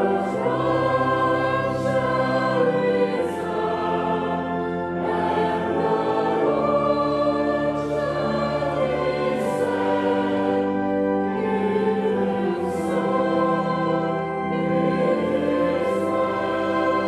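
A slow hymn sung by a group of voices, moving through long held chords.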